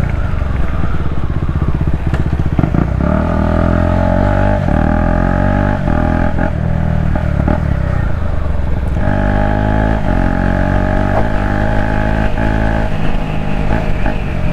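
KTM Duke 250's single-cylinder engine running with its exhaust removed, on the move, its revs climbing and dropping again and again as the bike accelerates and shifts. A high whine rides on top in stretches.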